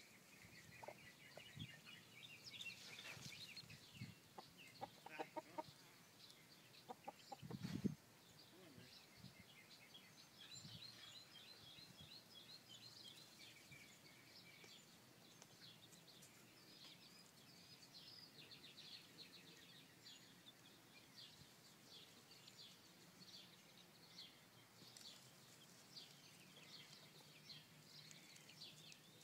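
Faint soft clucking from Australorp hens settled in a dust bath, with a few short clucks several seconds in over quiet, rapid high chirping throughout. A dull thump comes about eight seconds in.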